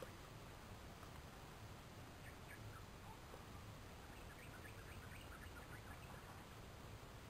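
Near silence: quiet outdoor background with scattered faint, short high chirps, like small birds, over a steady low hiss.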